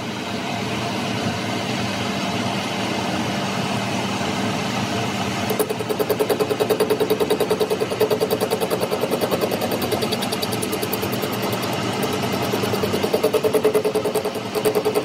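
Metal lathe running, turning down a steel shaft with a cutting tool. About five and a half seconds in, a fast, even pulsing with a buzzing tone starts and keeps going.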